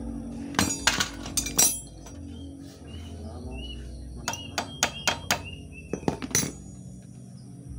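Sharp metallic clinks and taps of a steel rod and hand-worked metal at a motorcycle's gear shift lever, in two quick clusters, one about a second in and another from about four to six and a half seconds in.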